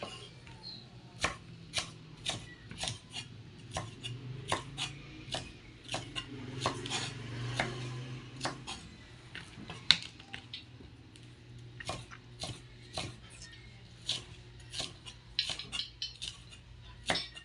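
Kitchen knife chopping on a cutting board: sharp separate knocks at an uneven pace of about two a second, over a steady low hum.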